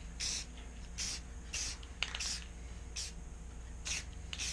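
Aerosol can of crystal clear enamel spraying in short bursts, about seven quick hisses roughly half a second to a second apart, clear-coating a sandblasted forged steel piece.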